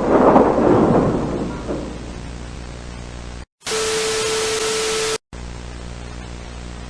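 A loud rushing burst that fades over about a second and a half, then a steady electrical hum. About halfway through the hum cuts out and a loud burst of static with a steady tone takes its place for about a second and a half, then the hum returns.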